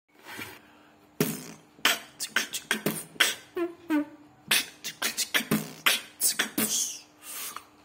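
Mouth beatboxing: a quick run of vocal kick, snare and hi-hat hits, with a few short hummed, sliding notes about halfway through.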